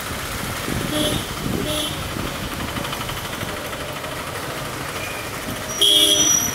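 Vehicle horns in street traffic: two short beeps about a second apart, then a louder, longer honk near the end, over a steady hum of engines.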